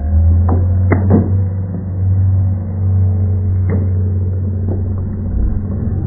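A steady low rumble with a few sharp clacks of bamboo sticks striking one another: a pair about a second in, then single ones near the end.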